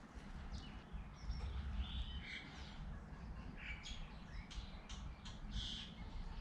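Faint bird chirps in the background, mixed with small ticks and rubbing from gloved fingers working a rubber seal onto a greased brake piston.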